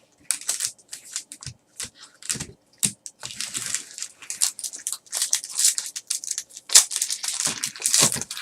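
Trading card packaging being torn open and crinkled by hand: irregular crackles and rips, sparse at first, then a near-continuous crinkling from about three seconds in.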